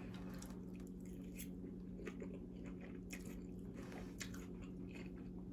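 A person chewing a mouthful of grilled chicken salad close to the microphone: faint, irregular crunches and wet mouth clicks.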